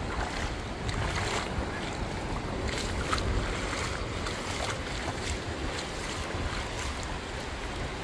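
Steady wind buffeting the microphone over the soft, distant wash of small breaking waves on a calm sea.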